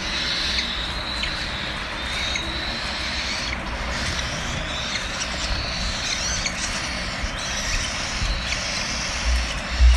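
Hungry cockatiel chicks begging for food: a steady, high-pitched chorus of begging calls, with a few low bumps near the end.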